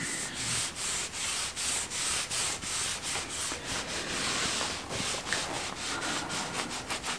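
Cloth rag rubbed back and forth over sanded hardwood slats in short, even strokes, about two a second, wiping boiled linseed oil onto the bare timber.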